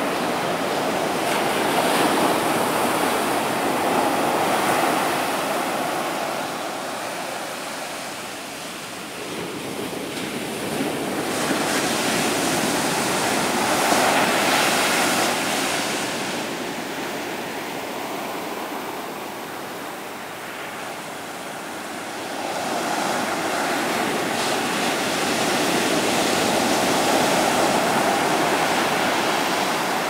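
Ocean surf breaking on a sandy beach: the rushing wash of the breakers swells and fades three times, about every ten seconds.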